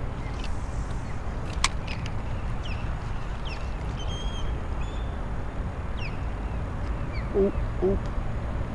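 Steady low outdoor rumble on the microphone, with scattered short chirping bird calls, one sharp click about a second and a half in, and two short low calls close together near the end.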